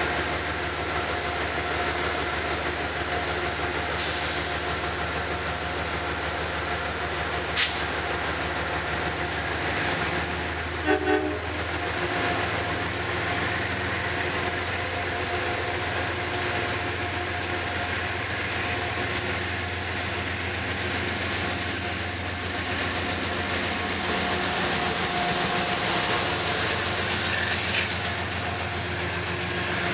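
GE P32AC-DM diesel locomotive pulling a commuter train out of the station, its engine running with a steady whine, and a short double tap of the horn about eleven seconds in. Two sharp clicks come in the first eight seconds. Near the end the coaches roll past with wheel clatter.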